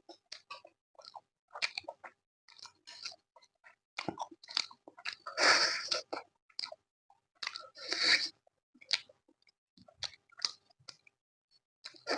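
A person chewing and biting mouthfuls of food close to the microphone, in irregular short bursts, with two longer, louder crunchy spells about halfway through and again about two-thirds in.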